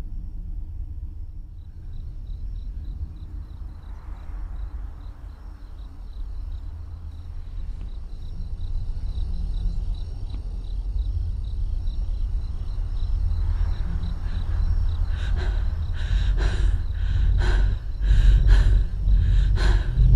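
Horror film soundtrack: a low steady rumble under a faint, high, rapid pulsing, then a run of sharp hits that grow louder over the last five seconds.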